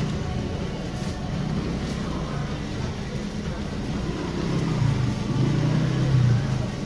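A low, steady rumble of motor or traffic noise, swelling a little about five seconds in.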